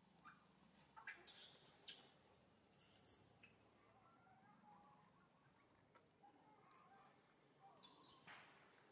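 Faint, short high-pitched chirps and squeaks, a few at a time, over a quiet background.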